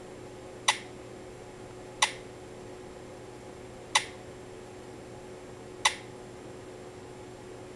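Four sharp clicks, about one every one and a half to two seconds, as a touchscreen smartphone is tapped while browsing, over a faint steady hum.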